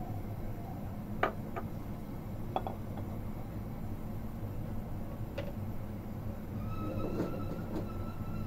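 Steady low hum in the kitchen while oil heats in a wok on a gas stove, with a few sharp clicks. A faint, steady high tone comes in about seven seconds in.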